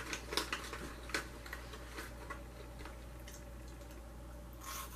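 A plastic snack bag crinkling and crackling in the hands: a string of sharp crackles over the first two seconds, then only a few faint ticks.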